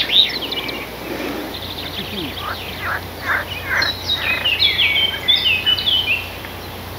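Small songbirds singing: a run of quick high chirps and trilled notes, busiest from about four to six seconds in.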